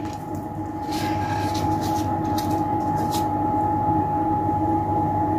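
Steady mechanical hum of a running kitchen appliance, with a constant high whine over a lower drone, getting a little louder about a second in. A few faint light clicks sound over it.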